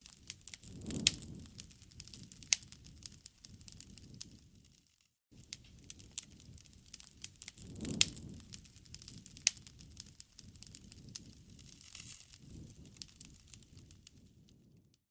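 Wood campfire crackling, with frequent sharp pops over a low rumble of flames; the sound briefly cuts out about a third of the way in.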